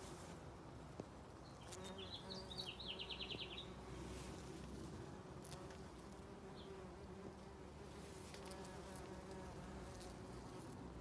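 Bumblebees buzzing steadily as they forage on rhododendron flowers. A bird gives a short, rapid trill about two seconds in.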